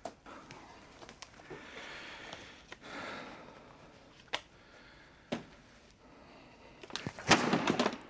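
Office handling sounds: rustling of papers and clothing and a chair shifting, with two sharp knocks about four and five seconds in, like a cabinet door or drawer, and a louder burst of noise near the end.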